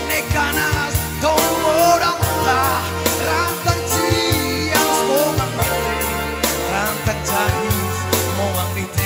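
A man singing live into a microphone in a husky, raspy voice, over keyboard backing with a bass line and a steady drum beat, all through a PA system.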